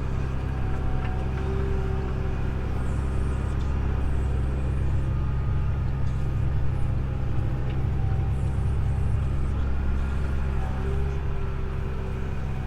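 Tractor engine running steadily under load while pulling a field cultivator, a constant low drone.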